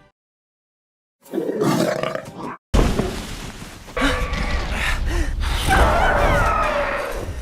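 Dragon roars and growls as a film-style sound effect. After a second of silence a growl starts, and a sudden loud roar breaks in a little under three seconds in. It carries on rough and sustained, with some rising and falling pitches.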